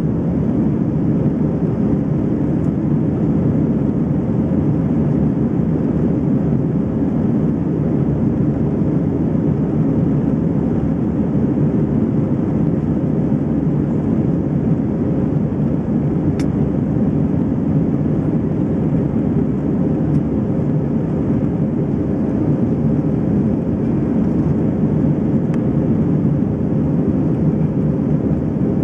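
Steady cabin noise of an Airbus A319 in flight, the drone of its engines and the rush of air heard through the fuselage, with a faint steady hum. A single click about halfway through.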